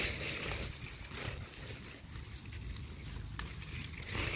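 Strawberry leaves rustling and faint handling noise as a hand reaches in among the plants to pick berries, over a low rumble, with a couple of small clicks.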